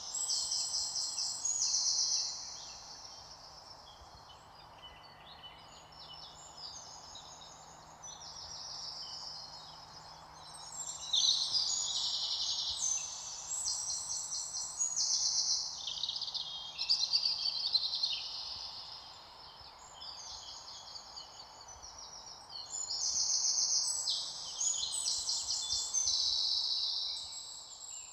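Birds singing in a chorus: many overlapping high-pitched, rapidly trilled phrases, louder in stretches in the middle and near the end, over a faint steady outdoor hiss.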